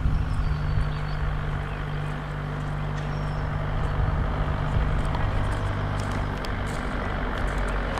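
A car engine idling steadily, a low even hum that holds its pitch.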